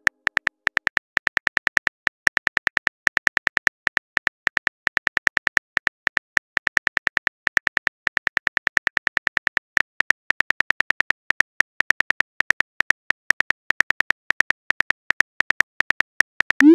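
Keyboard typing sound effect of a texting-story app: short, even clicks, about six a second, one per letter as a long message is typed. Right at the end a short rising swoosh as the message is sent.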